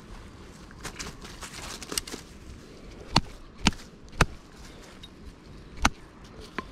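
A landing net with a caught trout in it being handled: a few sharp knocks and taps, the three loudest about half a second apart in the middle, then two more near the end.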